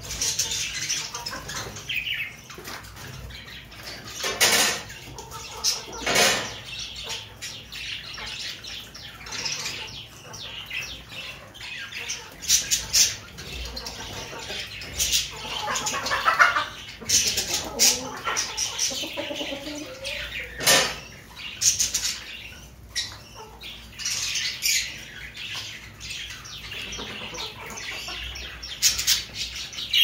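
A flock of Aseel chickens squawking and clucking now and then, among frequent short, sharp taps and rustles as the birds move and peck about.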